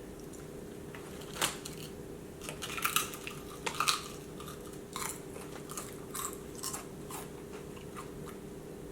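A large potato chip being bitten and chewed: irregular crisp crunches, loudest around 1.5, 3 and 4 seconds in, then smaller crunches as the chewing goes on.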